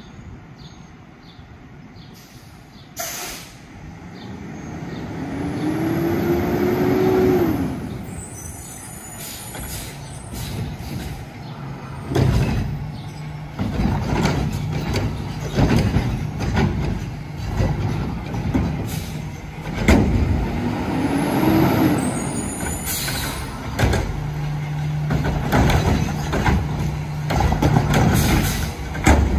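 Front-loader garbage truck with a Curotto-Can arm at work: the engine revs up and back down, then a string of bangs and clanks over a steady low hum, with short air-brake hisses.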